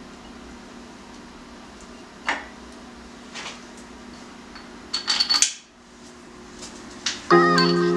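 Light metal clinks and taps of main bearing caps and bolts being fitted to a Ford 351 Windsor V8 block: a few single ticks, then a quick cluster of clinks about five seconds in. Background music comes in near the end.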